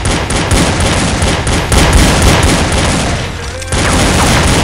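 Fast, overlapping volley of movie-style handgun gunshot sound effects, a continuous barrage of shots.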